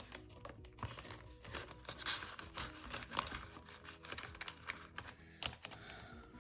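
Paper banknotes rustling and a clear plastic binder pocket crinkling as cash is counted and stuffed into it, with many small crackles and taps, over soft background music.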